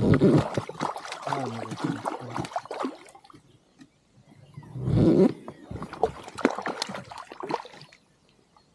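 Water splashing and sloshing at a small boat, with many short clicks and knocks, and louder surges at the start and about five seconds in.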